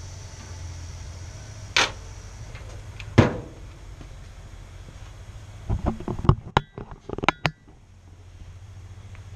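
Two sharp metal clanks at a grill, about two and three seconds in, the second and louder one as the grill lid is shut, over a low steady hum. From about six seconds a quick run of knocks and rattles as the camera is picked up and handled.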